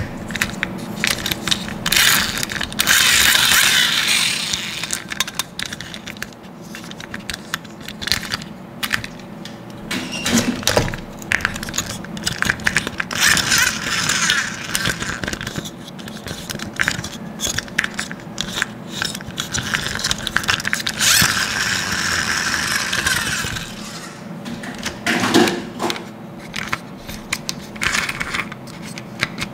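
Small plastic toy monster trucks handled and knocked against one another in a wooden box: a busy run of clicks, clatters and scrapes, with three longer rasping stretches.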